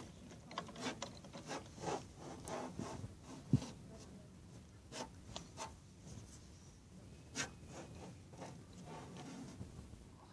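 Handling noise on a phone microphone: scattered rubbing and small clicks, with one sharp thump about three and a half seconds in.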